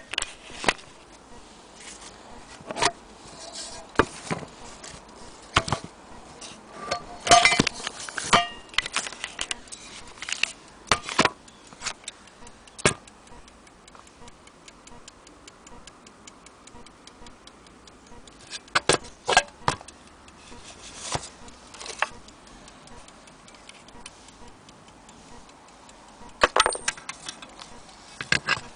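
Irregular metallic clicks, clinks and knocks from the brass case and numbered thimble carousel of an antique pigeon-racing timing clock being handled, with faint fine ticking in the quieter stretches between.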